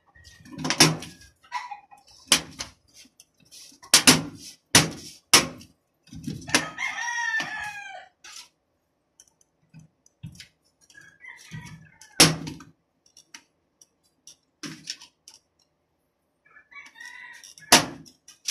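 Sharp knocks and clacks of a PC case's front panel being pushed and snapped back onto the case, about seven in all. A rooster crows once in the background about seven seconds in.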